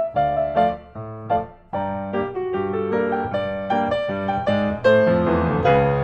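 Background piano music: a melody over chords.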